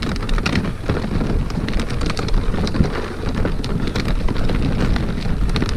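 Wind buffeting the microphone outdoors: a steady low rumble with many small crackles through it.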